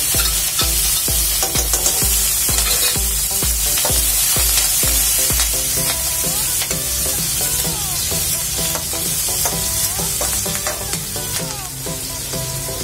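Green chillies, ajwain and asafoetida sizzling in hot mustard oil in a metal kadhai, with a spatula scraping and stirring the pan. Background music plays underneath.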